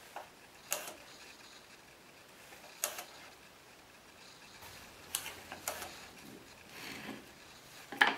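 A small metal square tapping and clicking against wooden strips on a workbench while they are marked out: about half a dozen sharp clicks with a soft scraping in between. The loudest click comes at the very end.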